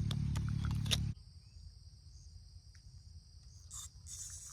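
Steady high-pitched chorus of insects, crickets or similar, going on under everything. For about the first second a low rumble with a few clicks is louder, then cuts off abruptly, leaving the insects and a couple of soft rustles near the end.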